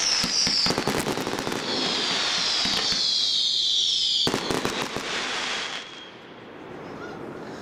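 Consumer firework cake firing: rapid shots and crackling, with a falling whistle at the start and a longer one through the middle. A last cluster of shots follows before the barrage dies down about six seconds in.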